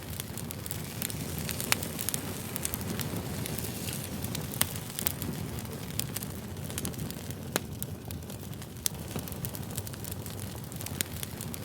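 Wood fire burning: a steady low rumble of flames with frequent sharp, irregular crackles and pops, a few of them louder than the rest.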